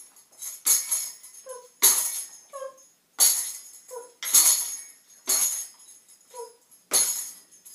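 A hand-held tambourine is shaken in six sharp jingling hits, about one a second. A dog gives short whines between the hits.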